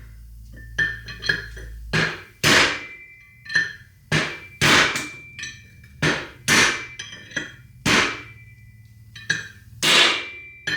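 Hammer striking a scrap bearing race used as a driver, knocking a bearing race out of a 1987 Toyota 4Runner's front hub. About fifteen sharp, ringing steel-on-steel blows, spaced unevenly at roughly one or two a second.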